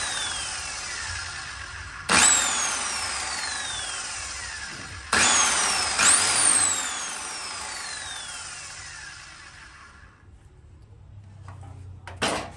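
RYU 7-inch sliding miter saw's motor, fitted with an abrasive cut-off disc, switched on in short blips about 2, 5 and 6 seconds in. After each blip the motor winds down with a long falling whine as the disc coasts to a stop: the newly mounted disc being test-spun. A short clatter comes near the end.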